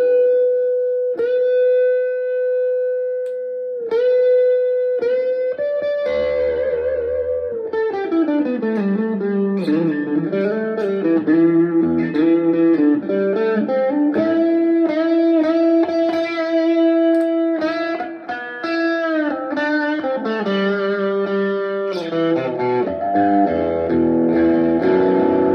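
Chapman ML1 Strat-style electric guitar played through a Blackstar HT1-R valve amp: a single note held for about four seconds, then a lead line with string bends, vibrato and long sustained notes.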